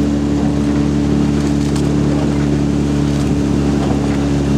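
Motorboat outboard engine running at a steady speed, an even low hum.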